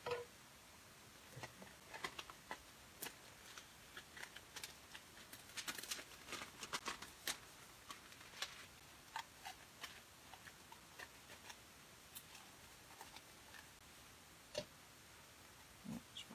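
Faint crinkling and scattered clicks of a sheet of metallic magenta craft foil being unrolled and handled, busiest around the middle.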